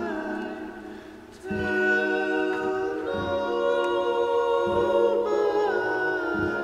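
Background music: voices singing sustained chords in harmony, over a low thud about every second and a half.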